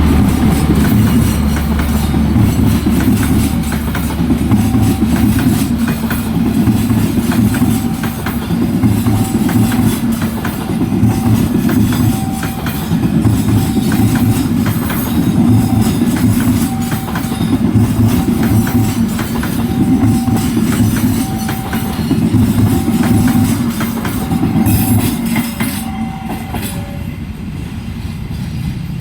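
Train pulling out behind a CC 206 diesel-electric locomotive, its wheels clattering over the rail joints in a steady rhythm over a low rumble, with a faint short high tone repeating every second or two. The rumble thins out near the end as the train moves away.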